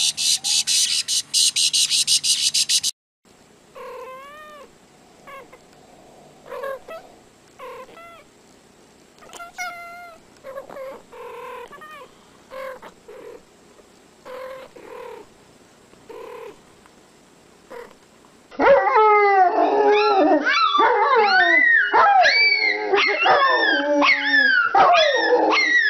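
Domestic animals crying out in short cries that rise and fall in pitch. The cries are faint and scattered through the middle, and in the last third many loud cries overlap. A rapid run of loud clicks opens the stretch and stops about three seconds in.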